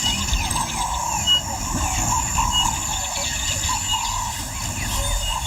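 Savanna ambience: birds giving short, repeated chirping calls over a steady high-pitched insect drone and a low rumble.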